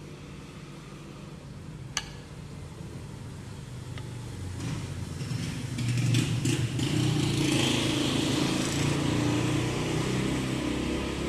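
Steamed milk pouring from a steel pitcher into a cup over a low engine-like hum that grows louder about halfway through, with one light click about two seconds in.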